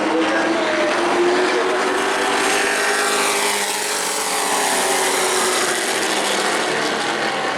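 Racing pickup trucks' V8 engines running hard as the field goes around the short oval, with engine pitch rising and then falling as trucks pass.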